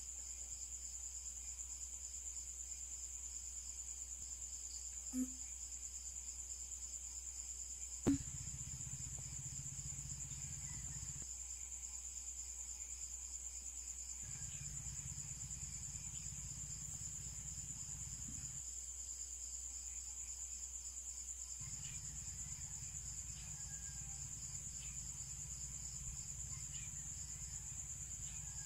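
Steady high-pitched chirring of crickets, with a low hum that comes and goes in stretches of a few seconds. Two short knocks, the louder one about eight seconds in.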